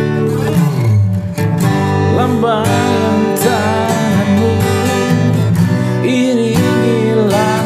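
Acoustic guitar strummed steadily, with a man singing long, wavering held notes from about two seconds in. Both are picked up through a Boya BY-M1 clip-on lavalier mic clipped to the guitar.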